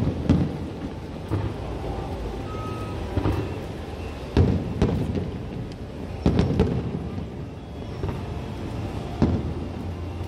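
Fireworks display: aerial shells going off as a string of sharp booms, about nine in ten seconds, some in quick pairs, each with a trailing rumble, over a steady low background rumble.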